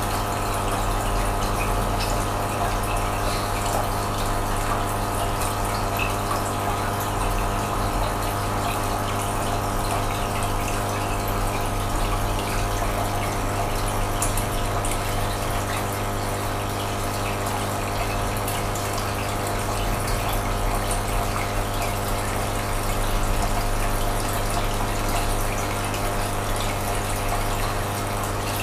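Aquarium pump humming steadily, with water running and bubbling in the tank.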